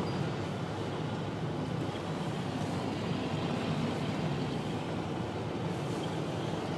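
Steady road noise inside the cabin of a moving car: engine and tyres running on without change, mostly low in pitch.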